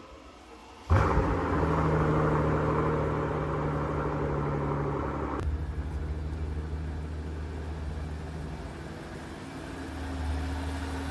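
Mercedes CL65 AMG's M275 twin-turbo V12 starting up, catching about a second in and running steadily. About five seconds in it drops to a lower, settled idle. It is running smoothly on its new serpentine belt.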